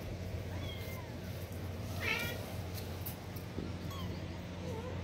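Kitten mewing: several short, high-pitched mews, the loudest about two seconds in.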